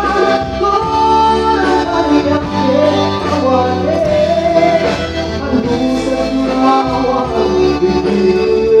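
Music: a singing voice carrying a melody over held instrumental notes and a steady bass line.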